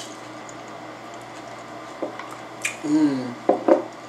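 Eating noises, soft mouth clicks and smacks, over a steady room hum. About three seconds in comes a short wordless vocal sound from the eater, then two sharp smacks.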